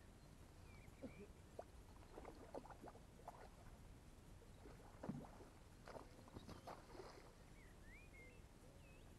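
Faint, irregular water splashes from a hooked rainbow trout being played and drawn in at the water's edge. Small birds chirp faintly now and then.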